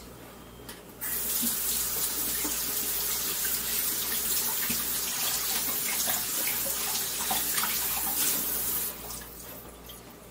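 Kitchen sink faucet turned on about a second in, with water running over hands being rinsed in a stainless steel sink, then shut off near the end.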